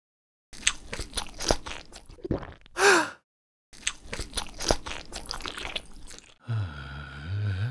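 Crisp crunching bites and chewing of crunchy fried chicken, dubbed mukbang-style eating sounds, in two runs with short silences between. A brief pitched vocal-like sound comes about three seconds in, and a low wavering pitched sound begins near the end.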